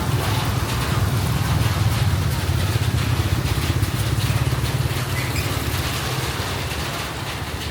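A vehicle engine running with a low rumble. The rumble is strongest in the first few seconds and fades after about five seconds, as if the vehicle is moving off.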